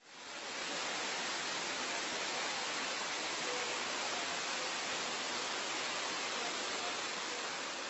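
Waterfall plunging into a pool in a narrow rock gorge: a steady rush of falling water. It fades in over the first half second and eases slightly near the end.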